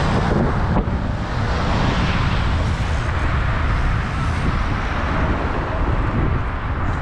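City street traffic: cars driving past on a wide road, a steady wash of tyre and engine noise with a low rumble.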